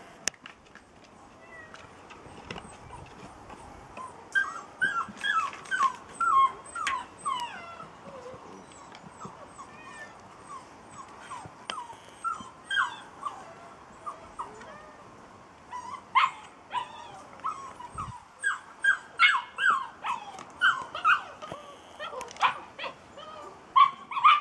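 Young puppies yipping and whining in short, high calls. The calls come in bursts about four seconds in and again near the middle, then come thick and loud through the second half.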